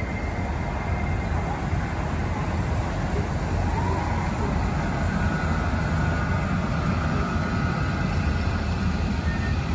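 Matterhorn Gotthard Bahn Deh 4/4 electric locomotive and its coaches rolling slowly past along the platform: a steady low rumble of the running gear, with a faint high whine from about the middle to near the end.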